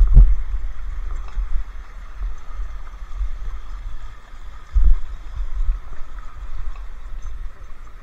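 Shallow rainforest stream trickling over rocks, under a strong uneven low rumble on the microphone from the moving camera. Two dull thumps stand out, one at the very start and one about five seconds in.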